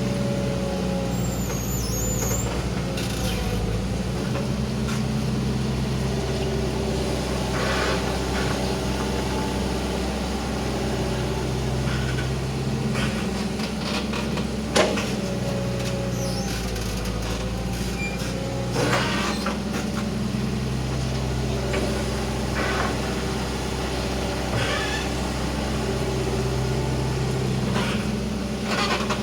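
Hitachi Zaxis 120 excavator at work: its diesel engine runs steadily, labouring and easing as the load changes. A hydraulic whine rises and falls with the load, and a few sharp knocks are heard, the loudest about halfway through.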